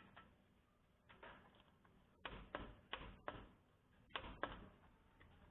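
Ratchet wrench clicking in short strokes, a few sharp clicks at a time with pauses between, as the rear differential's front bolts are tightened to 40 newton meters.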